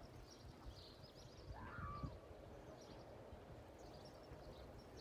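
Near silence: a faint outdoor ambience of scattered high bird chirps over a low rumble, with one louder bird call just under two seconds in.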